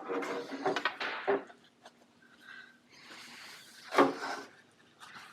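Scattered handling knocks and rustling, with one sharp knock about four seconds in.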